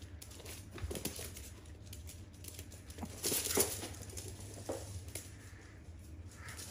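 Small dogs' claws pattering and scrabbling on a laminate floor as they run off, in scattered short clicks with the loudest burst about three seconds in.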